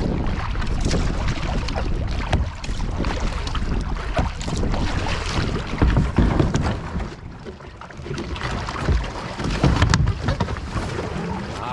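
Wind buffeting the microphone of a kayak-mounted camera, with water sloshing and splashing from paddle strokes on a sea kayak.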